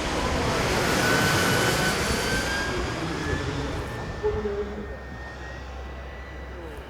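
Giant-scale RC model aircraft flying past, its engine whine swelling to a peak about a second in, then dropping slightly in pitch and fading away after about four seconds.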